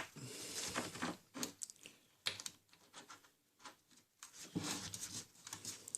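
Faint handling noises of a washer and masking tape being fitted into a slot: scattered small taps and rustles, busier near the end.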